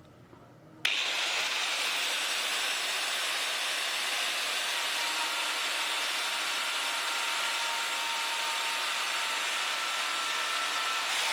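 Angle grinder running, a steady high-pitched hissing whine that starts abruptly about a second in and holds level.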